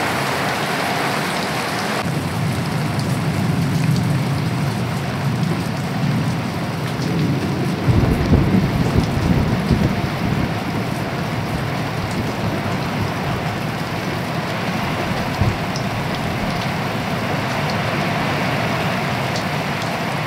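Steady rain falling on a garden, with a low roll of thunder about eight seconds in that swells and fades over a couple of seconds.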